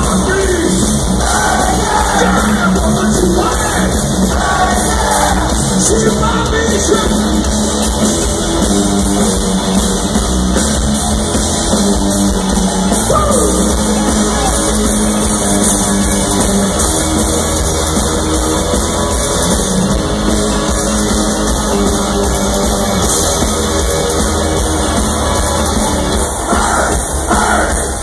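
Loud live heavy rock music from a band playing through the concert PA, heard from within the crowd.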